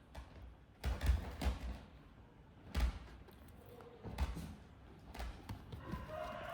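A handful of dull thumps and knocks at irregular intervals, with a faint steady tone coming in near the end.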